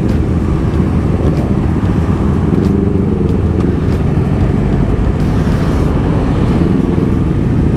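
Honda CBR250RR parallel-twin engine running at low speed in traffic, heard from the rider's own bike, its pitch rising and falling a couple of times as the throttle is opened and eased off. Other motorcycles and cars run close around it.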